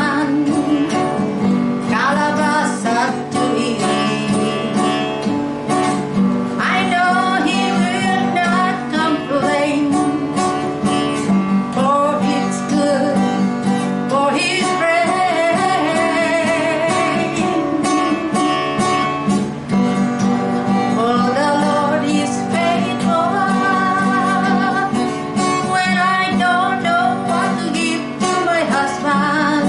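A woman singing a worship song to her own strummed acoustic guitar.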